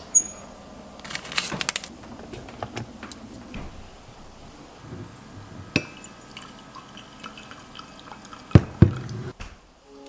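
Scattered clinks and knocks of cups and dishes being handled, with two louder knocks close together near the end.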